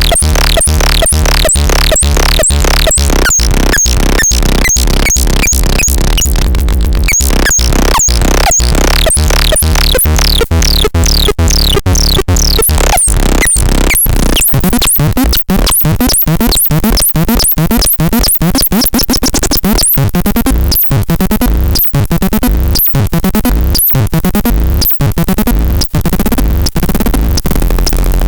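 Electronic synthesizer sounds from the LARPEL C15: rhythmic clicks with falling high-pitched zaps over a steady low drone, turning into a faster, denser stream of clicks about halfway through.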